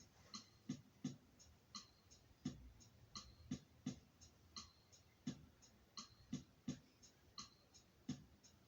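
Soft rhythmic percussion beat of low thumps and sharper ticks in a steady repeating pattern.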